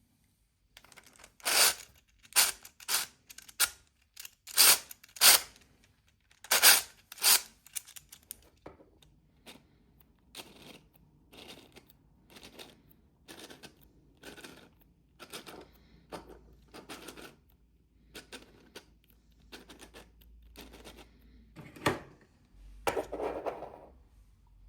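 Sharp clicks and knocks of hard 3D-printed plastic parts being handled and fitted together: loud and irregular at first, then fainter and fairly regular, about two a second, with one louder knock and a short rustle near the end.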